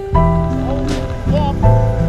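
Background music: held bass notes changing every half second or so under a melody with bending, sliding notes.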